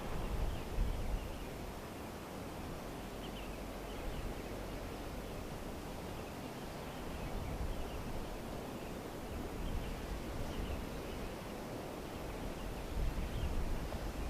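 Strong wind blowing, buffeting the microphone in low gusts, with a steady rustle and faint short high chirps every few seconds.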